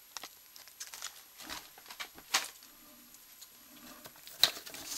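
Hands handling a cardboard snack box and its paper insert: light scattered rustles and taps, with a sharper tap about two seconds in and another near the end.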